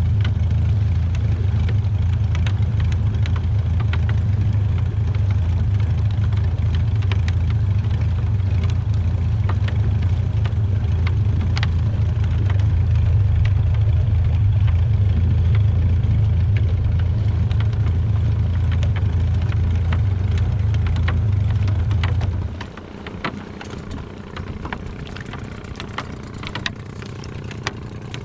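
Small fishing boat's engine running steadily at a low rumble, then dropping off sharply about 22 seconds in, leaving faint clicks and background noise.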